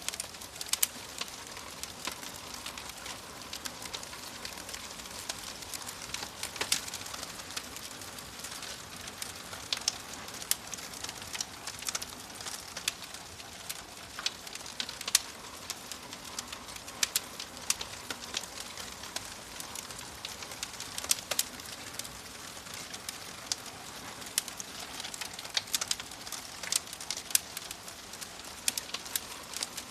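Wood fire crackling: a steady soft hiss with frequent irregular sharp pops and snaps, a few of them much louder than the rest.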